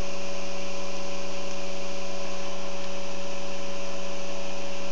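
Experimental Bedini-type pulse motor running steadily, its coils pulsed at about 93 to 95 hertz, giving a constant hum with a few steady tones over a hiss.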